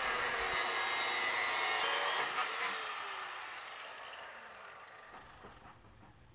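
Angle grinder cutting through a steel exhaust pipe with a steady high-pitched grinding, then let go about two and a half seconds in and spinning down, fading away over the next few seconds.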